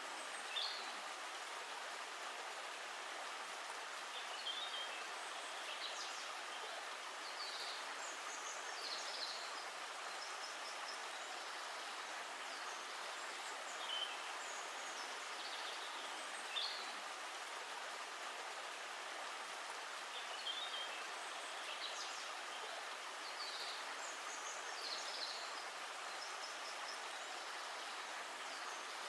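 Steady rushing of running water, with birds chirping briefly every few seconds.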